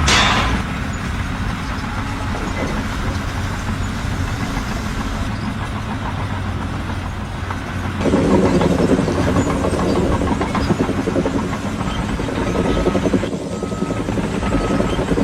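Heavy machine engine running steadily, growing louder and rougher about halfway through, with a faint repeating beep near the end.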